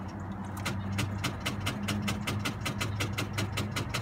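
Rapid, even clicking, about five a second, over a steady low hum from the 2015 Chevy Sonic as the key is turned and its engine does not turn over. The 1.8-litre engine is seized, its oil diluted by diesel fuel.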